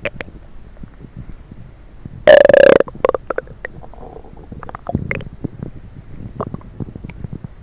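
Human stomach gurgling and rumbling after coffee and Diet Coke. Scattered small pops and gurgles, with one loud, pitched growl lasting about half a second a little over two seconds in.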